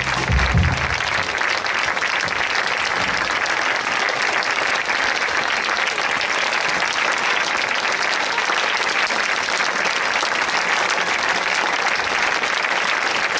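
Audience applauding steadily, a dense even clapping throughout; a low note from the band dies away about a second in.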